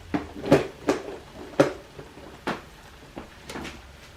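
Kitchen items being handled: about seven sharp, irregularly spaced clicks and knocks, the loudest about half a second and a second and a half in.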